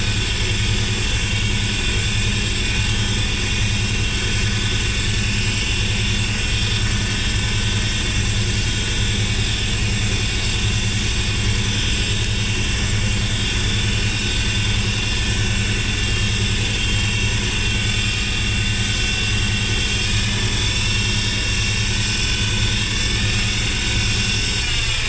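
Wood lathe motor running steadily at speed while the turning pen blank is hand-sanded with 600-grit and finer abrasive. Right at the end the lathe is switched off and its pitch falls as it spins down.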